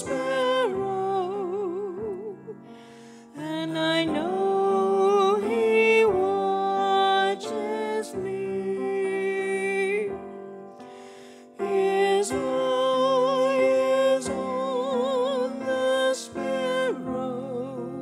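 A woman singing a slow sacred solo with vibrato into a microphone, accompanied by piano. She sings in long held phrases with two short breaks, and her last phrase ends and fades near the end.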